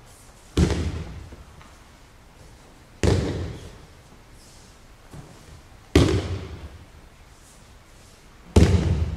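Four loud breakfalls on tatami mats, an aikido partner's body and arms slapping down as he is thrown, spaced two to three seconds apart. Each impact rings on briefly in a large hall's echo.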